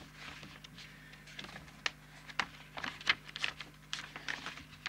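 Paper pages of a service manual being leafed through and handled: a run of irregular short rustles and clicks.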